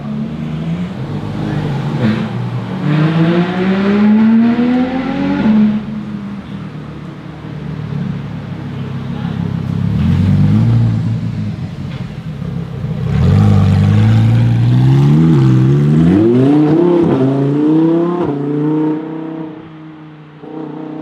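Lamborghini Huracán STO's naturally aspirated V10 accelerating hard twice, the engine note climbing steeply each time. In the second pull the pitch drops sharply at two quick upshifts, and the sound then fades as the car drives off.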